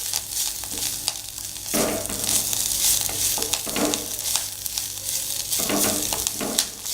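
Herb leaves sizzling as they are sautéed in a little oil in a kadai, with a spatula stirring and scraping through them in short strokes.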